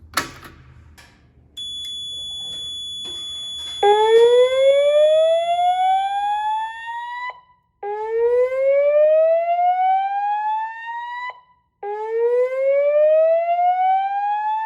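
Fire alarm voice-evacuation system sounding its slow whoop tone: three rising sweeps of about three and a half seconds each, with short gaps between them. A steady high-pitched tone starts about a second and a half in and stops partway through the second sweep. A sharp click comes at the very start.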